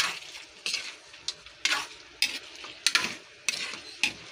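A spatula scraping and stirring chicken pieces in a pan, in about eight quick strokes roughly every half second, over a low sizzle of frying.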